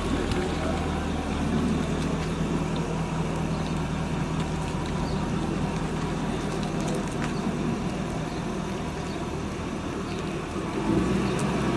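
A car engine running steadily at low speed without revving, over a background of traffic and street noise.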